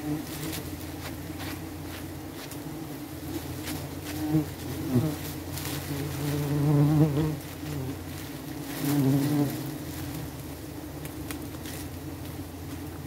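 Giant honey bees buzzing in a steady hum that swells louder several times in the middle, as bees pass close, with scattered faint clicks.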